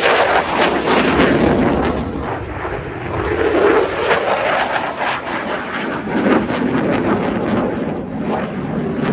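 Jet engine noise: a loud rumble with heavy crackling that swells and eases a few times.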